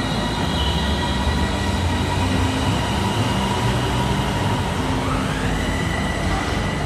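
Airport Rail Link City Line electric train pulling out of the station and running past: a steady rumble of the moving cars, with a whine that rises in pitch about five seconds in as it speeds up.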